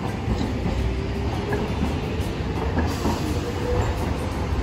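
Hiroshima Electric Railway streetcar running past, a steady rumble of wheels on rails with a faint rising whine.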